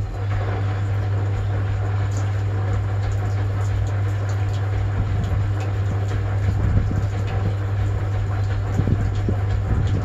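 1960 Constructa K5 front-loading washing machine running a wash: its motor hums steadily and the drum turns with a mechanical rumble while soapy water churns inside.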